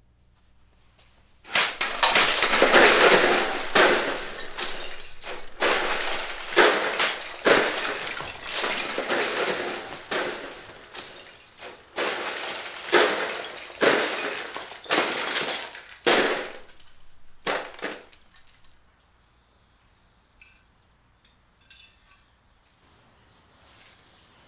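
Plastic Lego bricks crashing and clattering as a large Lego castle is smashed apart, in a long run of crashes and scattering that starts about one and a half seconds in and stops at about eighteen seconds.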